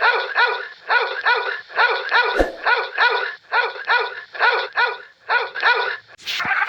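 An animal giving rapid, repeated short yipping barks, about four a second, each call a quick rise and fall in pitch; they stop shortly before the end, where a different animal sound begins.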